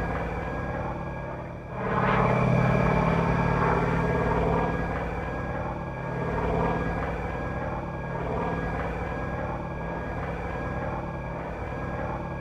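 Radio-controlled Pitts 12S model biplane with an onboard radial-engine sound-effects system, playing a throbbing radial-engine sound. It swells sharply about two seconds in, then eases and trails off near the end.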